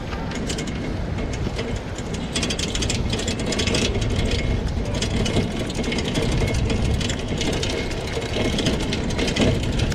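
Shared bike being ridden over a paved path: a steady rumble of wind and wheels, with constant fast clicking and rattling from the bike itself.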